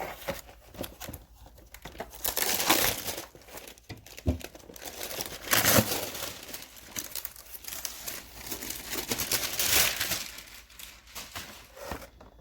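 Packaging being handled and unwrapped, rustling in three louder spells about two, five and a half, and nine and a half seconds in, with quieter handling between them.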